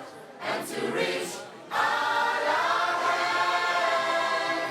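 A choir singing a gospel song, ending on a long held chord.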